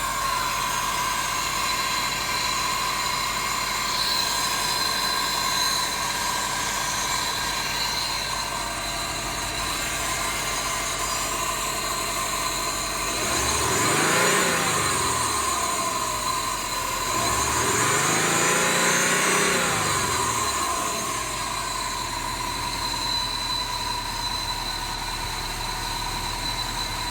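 2005 Subaru WRX's turbocharged flat-four engine idling with a steady high-pitched whine, revved twice about halfway through, each rev rising and falling over two to three seconds. The owner calls the sound strange.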